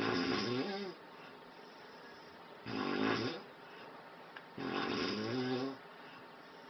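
A man snoring heavily in his sleep: three loud snores, each about a second long, about two seconds apart. It is positional snoring, the kind that depends on the sleeping position.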